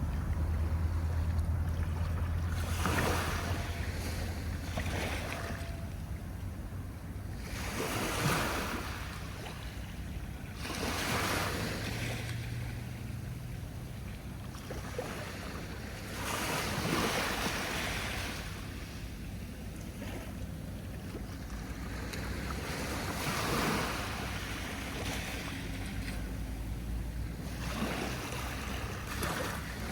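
Sea waves breaking and washing up the shore, a swell of wash every few seconds, over a steady low rumble of wind on the microphone.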